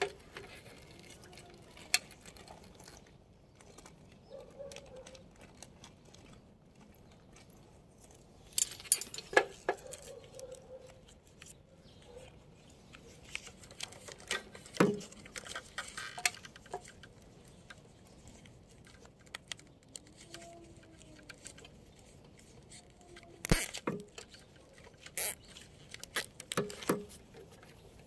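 Irregular clicks, taps and light rattling from a drop cable and hardware being handled on an aluminium ladder, with a sharper knock a few seconds before the end.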